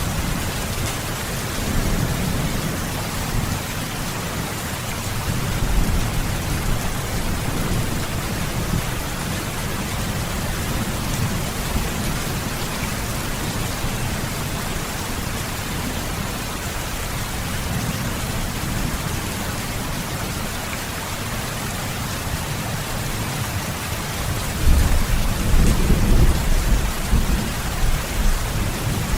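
Steady rain falling, with low thunder rumbling beneath it; the thunder swells louder near the end.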